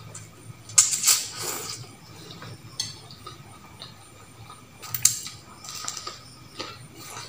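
A person slurping instant noodles, with a fork and spoon clinking against a plate. Loud slurps come about a second in and again about five seconds in, with light utensil clicks between them.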